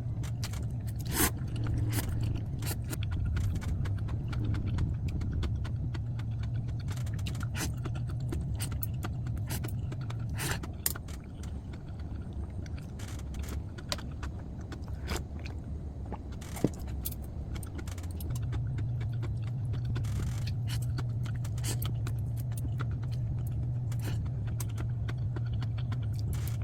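Light clinking and clattering of kitchenware, metal and dishes knocking together in a run of small sharp clicks. Behind it a steady low machine hum fades out about ten seconds in and returns some seven seconds later.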